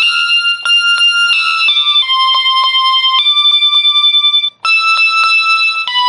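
Background music: high-pitched keyboard chords that change every second or so over a steady ticking beat, with a brief break about four and a half seconds in.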